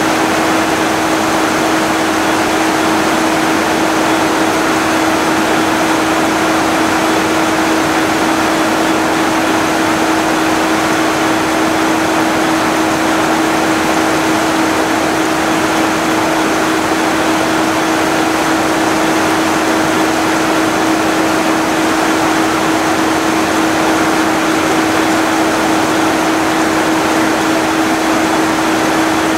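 Class 66 diesel-electric locomotive's EMD two-stroke V12 idling at a standstill: a steady hum with one clear held tone, over a continuous hiss, in heavy rain.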